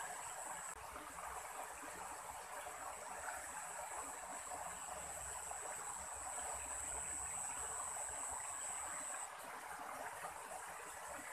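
Steady rushing of stream water, with a thin high-pitched whine over it that cuts off suddenly near the end.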